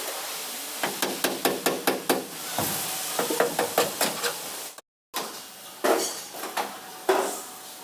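Hammer striking sheet metal in quick taps, about six a second, with a slight ring, then after a short break a few slower, heavier blows: panel beating on an accident-damaged vehicle body.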